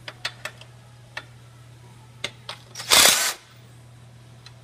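Metal clicks and clinks of a hand wrench working the leaf-spring mounting bolts on a golf cart's front suspension, a handful of sharp ticks spread through, with one louder burst of noise lasting about half a second around three seconds in.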